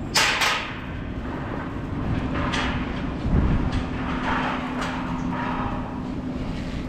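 Steady low hum of an idling engine, with short scrapes and clanks from handling gear and a dull thump about three seconds in.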